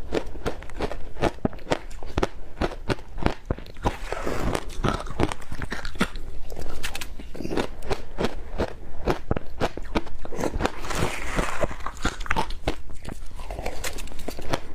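Ice cubes being bitten and chewed close to the microphone: a quick, irregular run of sharp, crackly crunches, several a second.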